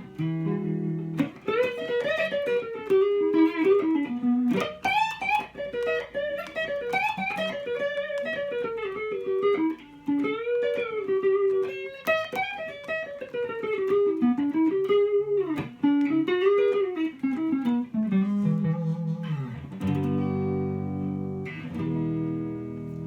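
EL Maya neck-through electric guitar played through a Tone King Gremlin amp: a single-note lead line with string bends, then strummed chords left ringing from about three quarters of the way through.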